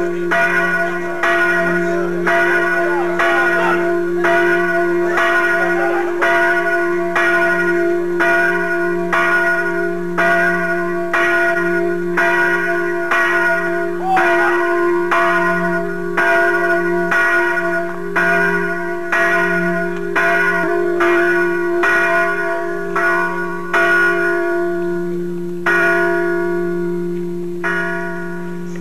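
A church bell ringing in steady strokes, about one a second, its low hum carrying on between strokes.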